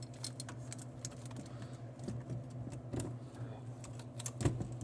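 Scattered small clicks and knocks of a screw and metal parts being handled while the prize-wheel motor assembly is fastened back in, with sharper knocks about three seconds in and near the end, over a steady low hum.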